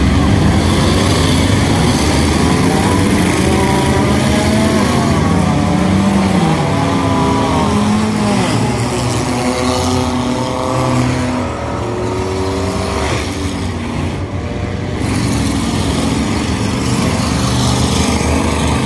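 A pack of old street cars racing on a dirt oval, several engines running hard at once, their pitches rising and falling as the cars accelerate and back off.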